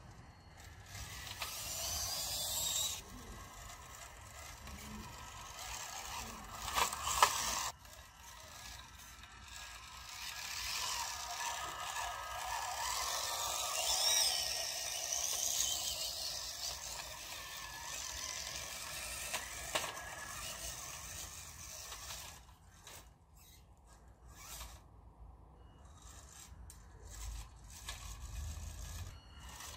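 Small electric motor and gearbox of a WPL B-1 1/16-scale RC military truck crawler whirring in stretches as it drives on its newly fitted drive shafts, with a sharp clack about seven seconds in and quieter pauses near the end.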